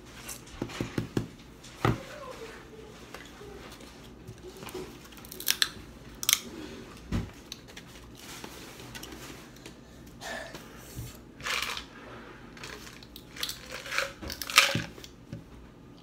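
Close-up eating sounds: shells of boiled shrimp being peeled and cracked by hand, with chewing. The crackles are irregular, with a few louder snaps and the loudest near the end.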